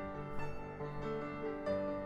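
Background music: a light keyboard melody, its notes changing about every half second.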